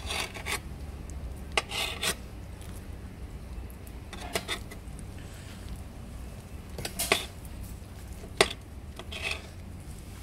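Kitchen knife cutting boiled octopus tentacles on a slate board: a handful of short, sharp scrapes and knocks as the blade slices through and meets the stone.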